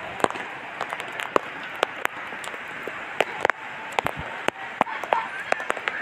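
Rain falling: a steady hiss, with frequent sharp, irregular ticks and taps of drops striking a hard surface close by.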